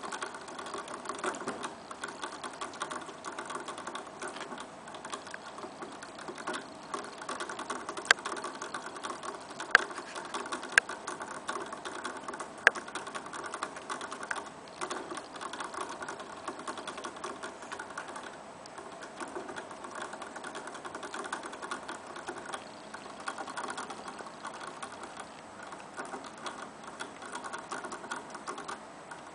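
Young rabbit drinking from a hanging bottle's metal sipper tube, the ball valve in the tube clicking in a fast, steady ticking as it laps, with a few sharper single clicks between about 8 and 13 seconds in.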